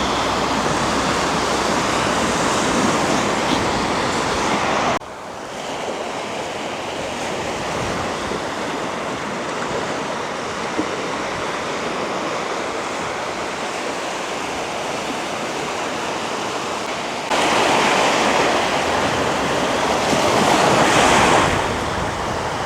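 Ocean surf washing on the shore, a steady rush that drops suddenly in level about five seconds in and comes back louder about seventeen seconds in.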